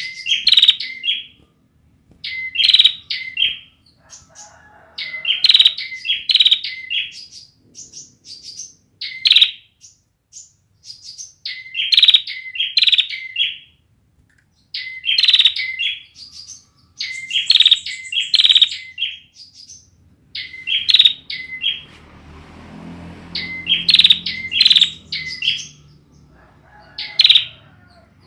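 Bar-winged prinia (ciblek) singing in short bursts of sharp, high chirps, a phrase every second or two; a bird whose song is not yet fully formed. A low rumbling noise runs under the song for a few seconds about three-quarters of the way in.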